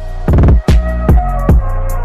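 Music with deep bass and a drum beat striking about every half second.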